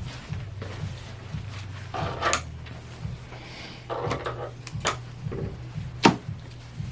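Scattered clicks and knocks of grooming tools and handling at the grooming table, the sharpest about six seconds in, over a steady low hum from running electric clippers.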